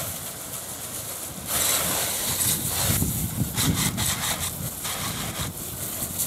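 Garden-hose sprayer on its shower setting spraying water over a muddy RC monster truck and the grass around it: a hiss that gets louder about a second and a half in and surges unevenly as the spray moves. Wind rumbles on the microphone underneath.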